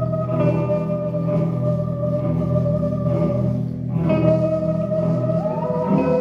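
Background music of held, sustained chords, changing chord about four seconds in and sliding to a new pitch near the end.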